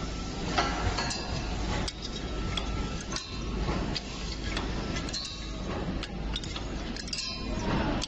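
Automatic aluminium tube filling and crimping machine running: its rotary tube-holder turntable and crimping stations make frequent, irregular metallic clicks and clinks over a steady machine hum.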